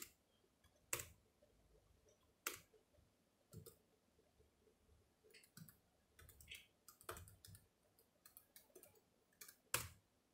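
ThinkPad X1 Carbon Gen 7 laptop keyboard keys being pressed. The presses are faint, single clicks about a second apart at first, then a quicker run of keystrokes about six to nine seconds in, and one sharper press near the end.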